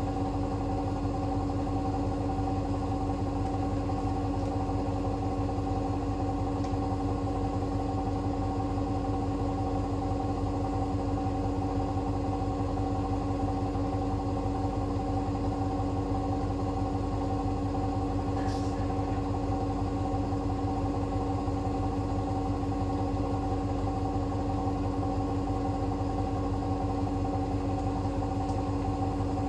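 Hoover H-WASH 500 washing machine running steadily through its cotton cycle: a constant motor hum and whine at an unchanging pitch over a low rumble, with one faint tick about halfway through.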